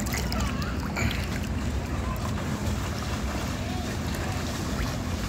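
Pool water lapping and sloshing under a steady low rumble of wind on the microphone, with faint voices in the background.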